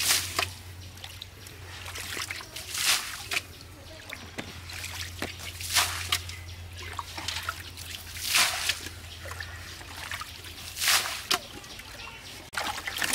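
Muddy pond water being bailed with a metal bowl: a splash of thrown water about every two and a half seconds, five in all, with trickling and sloshing between scoops.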